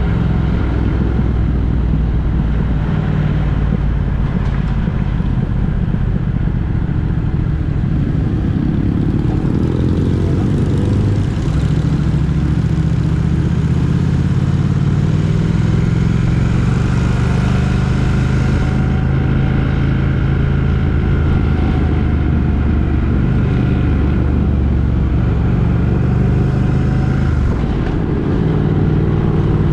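A road vehicle's engine running under steady road noise, its pitch climbing as it speeds up about eight seconds in and again near the end.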